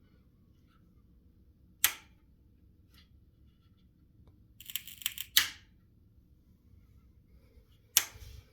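Power switch of a Be Quiet Dark Power 13 1000W power supply clicking three times. Just before the middle click there is about half a second of crackling: the weird switch-off noise, which the owner likens to a short circuit or loose contact.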